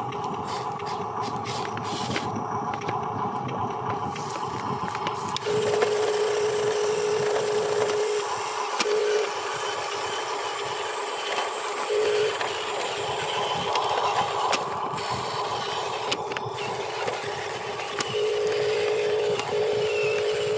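Radio-controlled dump truck's electric drive motor and gears whining at a steady pitch, starting and stopping several times as it moves, with light crackles of dry straw and dirt under the wheels.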